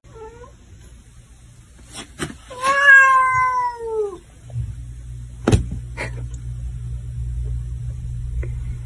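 Domestic cat meowing: a faint short meow at the start, then one long meow falling in pitch about three seconds in. After it comes a steady low hum with a couple of sharp clicks.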